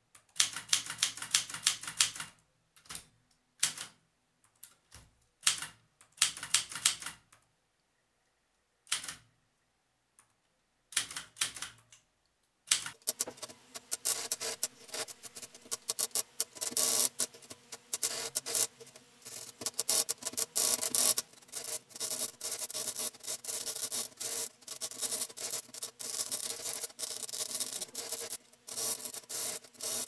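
Maritsa 12 manual typewriter being typed on. Short bursts of keystrokes are separated by silent gaps at first. About thirteen seconds in, it becomes a dense, continuous clatter of keys striking.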